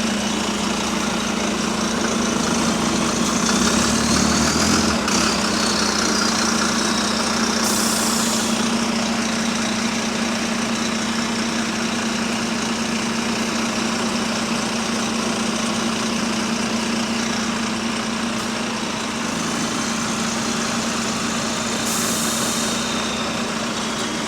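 Bus engine idling steadily, a steady low hum, on a bus whose exhaust is slightly burst. Two short hisses of air, about 8 seconds in and again near the end.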